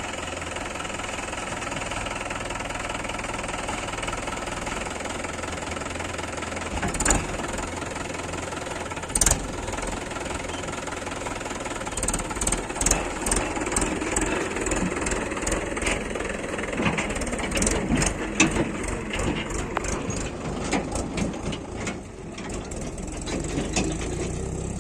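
Diesel engine of heavy machinery running steadily. Two sharp knocks come about seven and nine seconds in, then a run of rapid clattering knocks through the second half.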